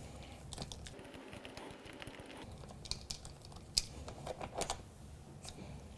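Faint, irregular clicks and light metal taps of hex keys working the axle bolt while an old wheel is taken off a Lowepro X200 rolling case.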